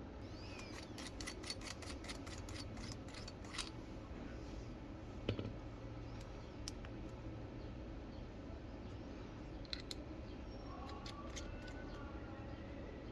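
A quick run of small sharp clicks, about four a second, then scattered clicks and a single knock about five seconds in: small items being handled during unboxing.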